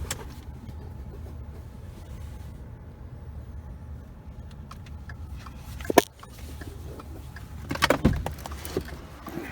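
A car door shut hard about six seconds in, over a steady low rumble, with a click at the start and a short clatter of knocks and rattles near the end as someone gets out of the car.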